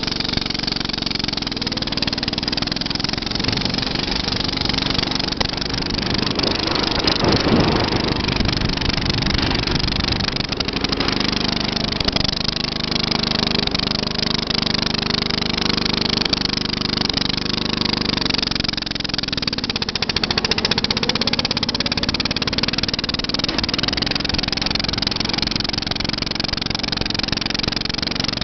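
Racing lawn tractor's 13 hp Briggs & Stratton Intek engine running loud at speed. About twenty seconds in, the engine note drops and then climbs back up.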